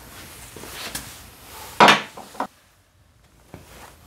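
Footsteps, then a sharp, heavy knock about two seconds in with a short ring and a lighter knock just after it: a motorcycle starter motor being set down on the steel-plated workshop floor. A few small clicks follow near the end.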